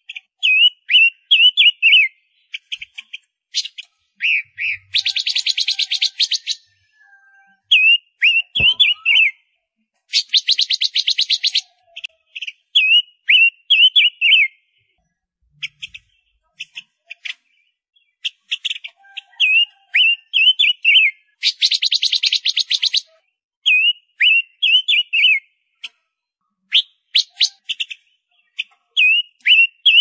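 Female Gouldian finch calling: short runs of high, falling chirps, repeated over and over. Three times a harsh buzzing rattle cuts in, each lasting about a second and a half.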